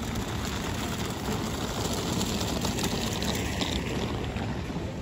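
Steady city-street noise on a wet night street: a continuous rushing hiss over a low rumble, with no one speaking close by.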